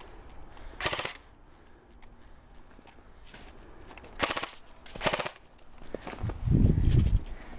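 Three short bursts of full-auto airsoft rifle fire laid down as cover fire, about a second in and twice more around four to five seconds in. Near the end comes a louder low rumble.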